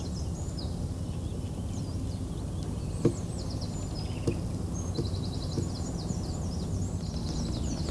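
Outdoor riverside ambience: small birds singing in quick high trills over a steady low rumble, with two sharp clicks around the middle.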